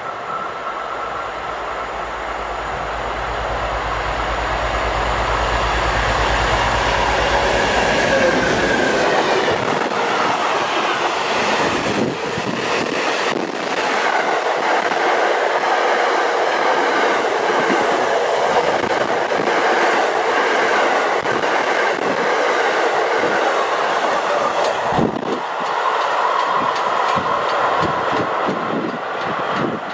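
DB class 233 'Ludmilla' diesel locomotive passing at the head of a heavy engineering train of track machines. A deep engine drone comes first as the locomotive draws near, then a long rumble and clatter of wheels over the rail joints as the wagons roll by, thinning near the end.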